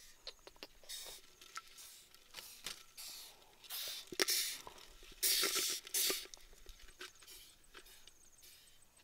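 Short bursts of scratching and rustling with a few sharp clicks: beetles crawling and clambering over one another inside a clay pot.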